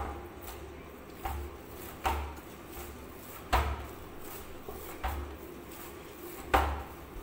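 Wheat-flour dough being kneaded by hand in a stainless steel bowl: dull thumps as the knuckles push the dough down against the steel, about one every second or so.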